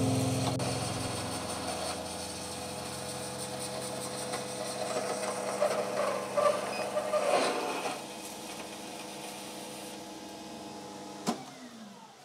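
Metal lathe running with its indexable insert cutting the workpiece, throwing off stringy chips; the cut gets louder and rougher a little past the middle. Near the end a switch clicks off and the spindle motor winds down in falling pitch.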